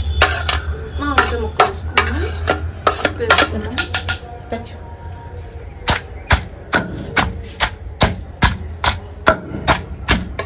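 Wooden pestle pounding green chillies with salt in a stone grinding mortar: a steady run of dull strikes, about three a second, with a short lull in the middle.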